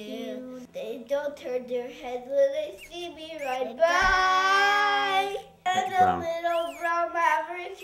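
Two children, a boy and a young girl, singing, with one long held note about halfway through.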